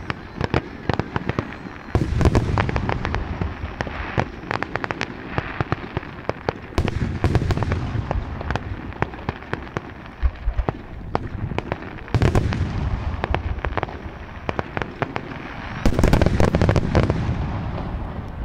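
Aerial fireworks display: four heavy shell bursts with deep booms a few seconds apart, and dense crackling and popping of smaller effects between them.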